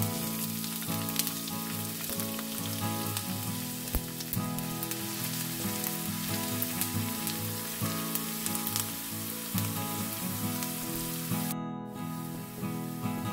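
Chopped onion sizzling and crackling in hot oil in a frying pan, a steady hiss full of small pops, with a brief break near the end.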